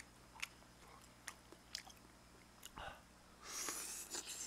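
A person eating noodles: a few sharp, wet chewing smacks, then from about three and a half seconds in a long, louder slurp as udon noodles are sucked in from the chopsticks.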